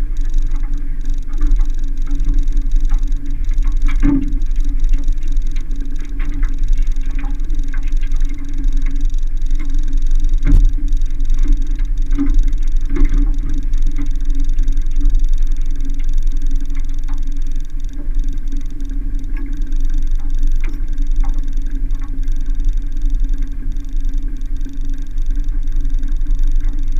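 Scattered knocks and clunks in an aluminium fishing boat over a steady low rumble and hum.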